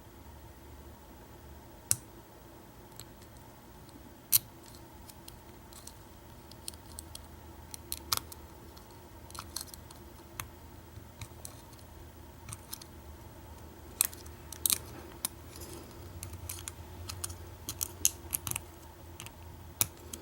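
Lock pick and tension wrench working the pin stack of an old American 700 padlock: irregular sharp metallic clicks and taps, a few much louder than the rest, busier in the second half, over a faint steady hum.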